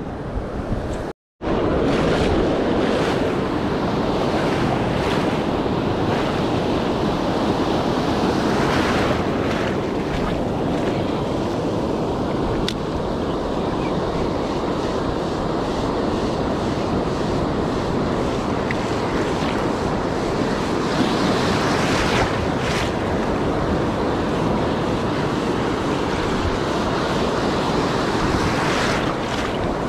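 Ocean surf breaking and washing up the beach, with wind buffeting the microphone. The sound cuts out completely for a moment about a second in.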